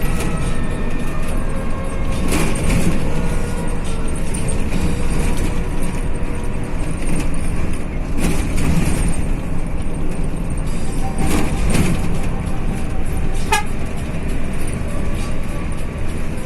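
Mercedes-Benz-engined express bus running on the road with steady engine and road noise, and its horn tooting briefly now and then.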